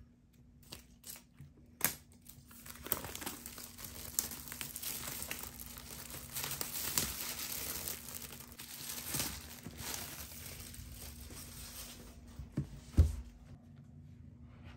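Clear plastic shrink wrap being pulled off a laptop box and crumpled: continuous crinkling and tearing full of small crackles, then a single low thump near the end.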